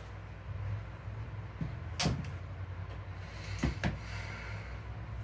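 A desk chair being pulled up and sat in: a sharp knock about two seconds in, then two more knocks with some rustling a second and a half later, over a low steady hum.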